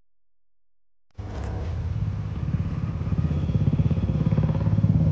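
About a second of silence, then a small engine starts being heard abruptly, running steadily with a rapid low pulsing, like a motorcycle idling close by.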